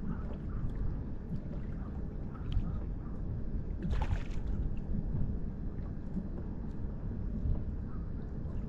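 Water lapping against a fishing kayak's hull as it moves over a light chop, with wind rumbling on the microphone. A short, louder burst of splashing noise comes about four seconds in.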